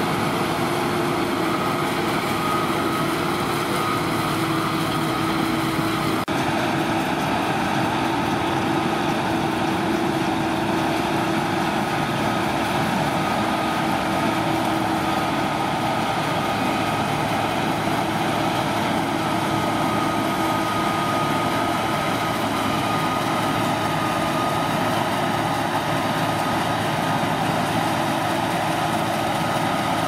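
Claas Lexion 480 combine harvester working at full load while harvesting winter barley: engine and threshing machinery running steadily, with a constant whine over the rumble.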